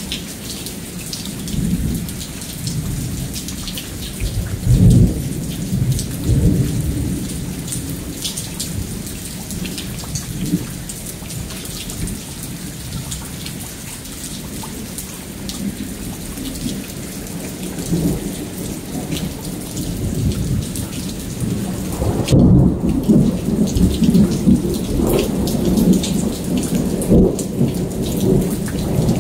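Thunder rumbling over steady heavy rain in a thunderstorm, with a sharper peak about five seconds in and a longer, louder rumble building about three-quarters of the way through.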